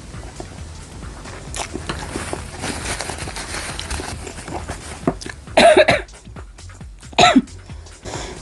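Quiet chewing, then a person coughs twice, hard and loud, about five and a half and seven seconds in: a cough set off by the sour vinegar dip on the grilled street food.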